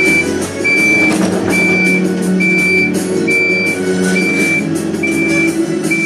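Reversing alarm of a Hidromek 102B backhoe loader beeping steadily, about once a second, over the machine's running diesel engine.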